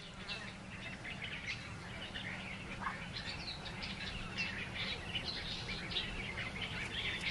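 Wild birds chirping and calling in many short, overlapping chirps, over a low steady rumble.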